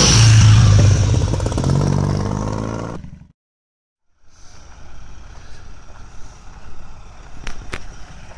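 Old motorcycle engine running loudly: revved near the start, then falling back in pitch over about three seconds before cutting off abruptly. After a short gap there is a much quieter outdoor background, with two sharp clicks near the end.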